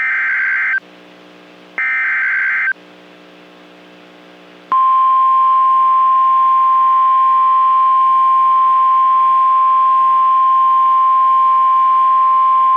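NOAA Weather Radio SAME alert header: two short, buzzy digital data bursts about a second long, at the start and about two seconds in, then about five seconds in the loud, steady 1050 Hz weather radio warning alarm tone. It is the coded header and alert tone that announce a new warning message, here a severe thunderstorm warning.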